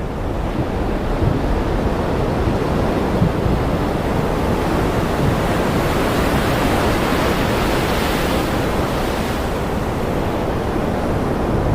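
Ocean surf: waves rushing and washing in a steady roar, with one wave swelling into a brighter hiss about halfway through and fading near the end.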